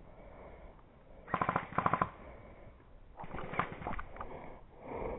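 Airsoft gun firing rapid full-auto bursts: two quick rattling bursts about a second and a half in, with more shots a little later.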